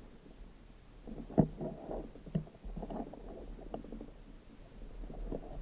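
Irregular muffled knocks and water sloshing, with a sharper knock about a second and a half in and another near two and a half seconds. The sloshing grows toward the end.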